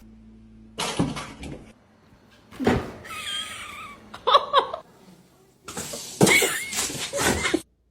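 A domestic animal's short wavering calls mixed with knocks and bumps, in several separate bursts with short quiet gaps between them.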